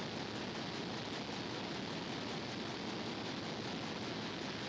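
Steady rushing noise of engine-room machinery and ventilation, even and unchanging, with no beat, tone or knocks.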